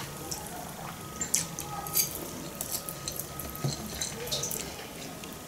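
Fork clinking and scraping against a ceramic bowl and plate while eating, a handful of light, separate clinks spread over a few seconds.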